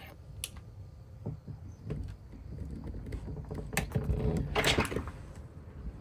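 Scattered clicks and knocks of doors and household objects being pulled with a handheld digital force gauge, the loudest about four and a half seconds in.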